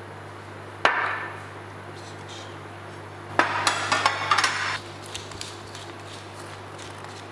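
A sharp knock with a brief ring about a second in. Then, about three and a half seconds in, a wooden spice mill is twisted over a platter of vegetables, giving a second and a half of rapid crackling clicks that trail off into faint scattered ticks.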